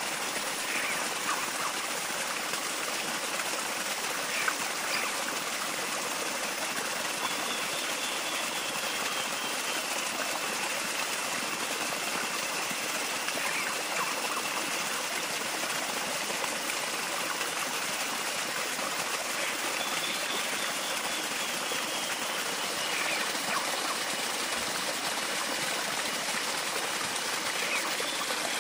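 Steady rushing of flowing water, like a small stream, with a few faint high calls over it now and then.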